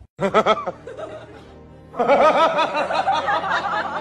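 Human laughter dubbed over the picture: a quick burst of short 'ha-ha' pulses at the start, then about two seconds in, a longer run of giggling and chuckling, with background music.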